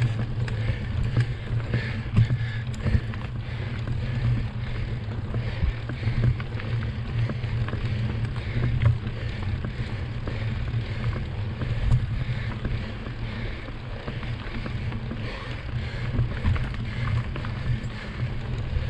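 Mountain bike ridden over a dirt trail: a steady rumble of wind on the microphone and tyres rolling, with frequent small clicks and rattles from the bike.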